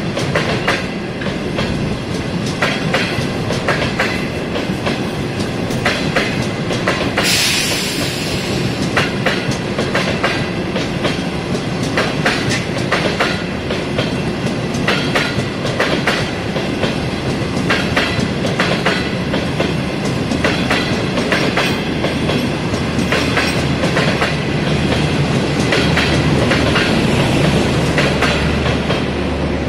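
Passenger coaches of a departing China Railway train rolling past at low speed. Their steel wheels click repeatedly over rail joints and points above a steady rumble. A short hiss comes about seven seconds in.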